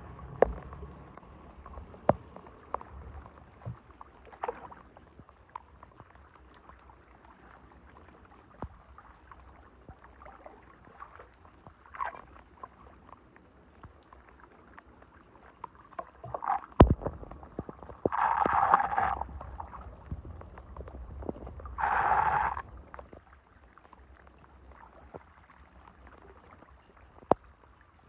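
Water splashing and sloshing while debris is worked loose from a clogged drain, with scattered sharp knocks. Two louder splashes of about a second each come near the end.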